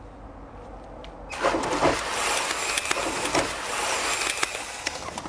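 A person plunging into a swimming pool: a sudden splash a little over a second in, then several seconds of water sloshing and churning.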